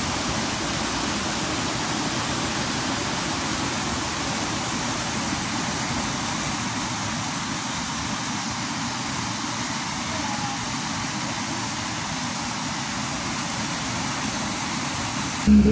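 Small waterfall rushing steadily into a pool, an even wash of falling water. Music comes in just at the very end.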